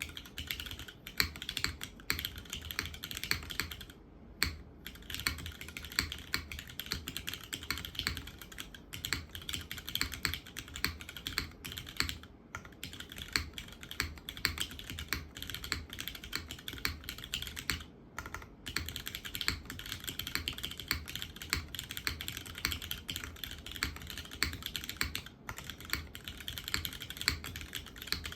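Steady, fast typing on a custom mechanical keyboard with a polycarbonate case and gasket-mounted aluminium plate. The switches are lubed, filmed, broken-in Cherry MX Hyperglide Black linear switches, and it is fitted with GMK keycaps. Key presses clatter continuously with only brief pauses.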